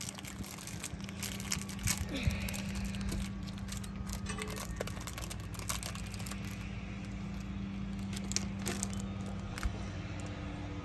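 Plastic wrapper of a Match Attax trading-card pack crinkling as it is torn open by hand, with sharp crackles in the first few seconds. A steady low hum runs underneath.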